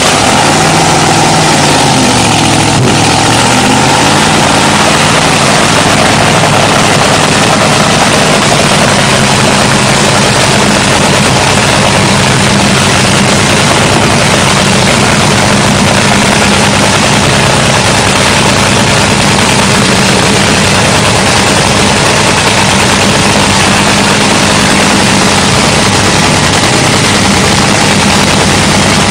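Supercharged 500-cubic-inch nitromethane-burning Top Fuel Hemi engine running in a pit warm-up, very loud. Its pitch dips and comes back up in the first few seconds, then it holds a steady idle.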